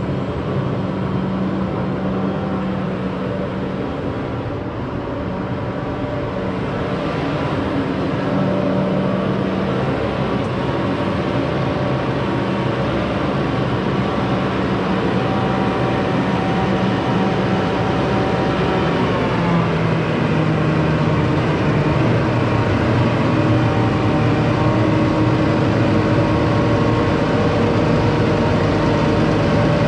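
Versatile 210 Nemesis tractor's diesel engine running as the tractor is driven around and backed up close. Its pitch drops a step about two-thirds of the way through, and it grows louder toward the end as the tractor nears.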